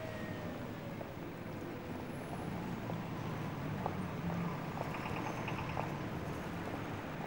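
Street ambience: a steady low traffic hum, with a distant siren winding down in the first second and a few faint knocks.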